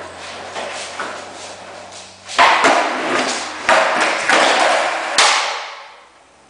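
Skateboard on a concrete garage floor: wheels rolling with a rough rumble, broken by several sharp clacks and thuds, then rolling away and fading about five seconds in.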